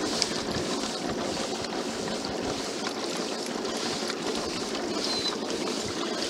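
Steady rush and trickle of water along the hull of a pedal-powered boat under way.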